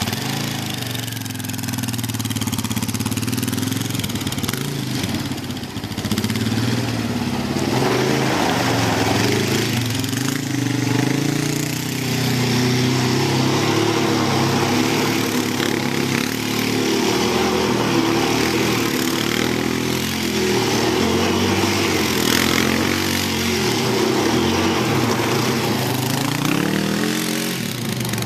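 Sport ATV engine revving up and down again and again as the quad is spun in tight donuts with its rear wheels sliding in loose sand, getting louder about six seconds in.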